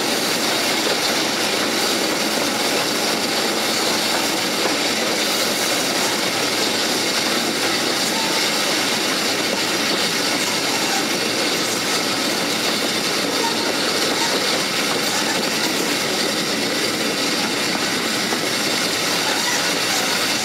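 Steady running noise of a passenger train hauled by a Bulleid West Country class steam locomotive, heard from an open carriage window: wheels rolling on the rails and air rushing past, with no single event standing out.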